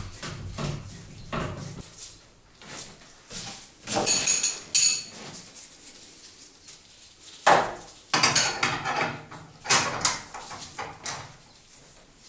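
Steel threaded rods and bar clamps being handled on a wooden frame: irregular metallic clinks and rattles, some ringing briefly, coming in clusters about four seconds in and again from about seven and a half to eleven seconds.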